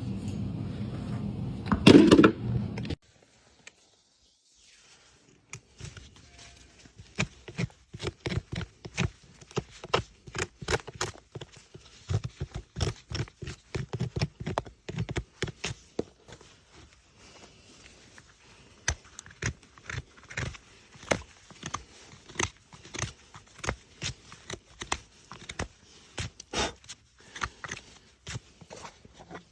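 A farrier's rasp filing a horse's hoof, which cuts off about three seconds in. After a short silence comes a long, irregular run of short clicks and scrapes from hoof-trimming work.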